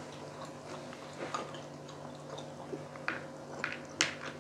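Chewing and mouth smacks of people eating fried pork cheek with rice, heard as scattered soft clicks, the sharpest few in the last second and a half.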